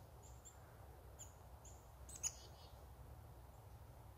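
Faint, quiet woodland with short high bird chirps: a few in the first two seconds and a louder one a little past the middle.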